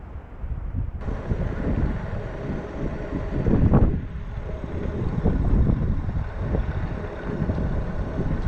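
Wind buffeting a bicycle-mounted camera's microphone while riding downhill, a rough rushing noise with uneven gusts, the strongest a little past three and a half seconds in.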